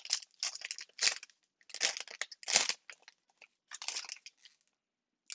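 Trading-card pack wrapper being crinkled and torn open in a run of irregular rustling bursts that stop about four and a half seconds in.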